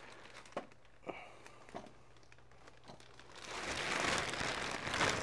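Packaging being handled: a few faint knocks, then from about three and a half seconds in a rustling, crinkling noise of packing material being moved.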